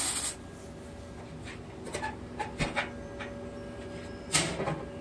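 A wire-feed welder's arc crackling as it tacks a door hinge, cutting off suddenly just after the start. Then come a few light clicks and knocks, and a louder rustling clatter about four seconds in as a nylon ratchet strap is pulled off the steel smoker door.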